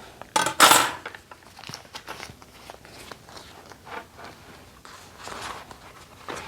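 Paper rustling and handling noises as a traveler's notebook is leafed through and its inserts moved: one loud rustling burst about half a second in, then softer scattered rustles and light taps.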